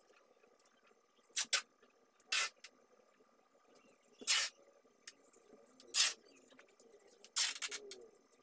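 Adhesive tape being pulled off its roll in short rips as it is wrapped over a ribbon-covered plastic packing strap. There are six rips, the first two close together and the last the longest.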